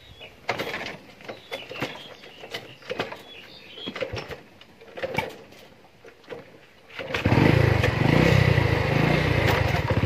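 Scattered knocks and rustles, then about seven seconds in a motorcycle engine starts and runs steadily.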